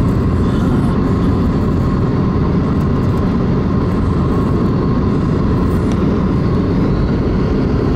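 Car driving: steady road and engine noise.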